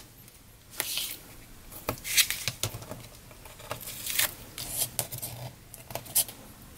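Double-sided tape being torn and its backing peeled off to stick linen card stock together: a series of short rips and paper rustles.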